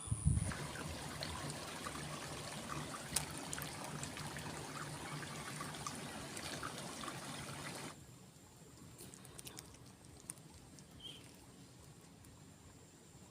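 Water trickling and splashing in a steady stream, with small ticks. About eight seconds in it drops abruptly to a much quieter hiss with a few faint clicks.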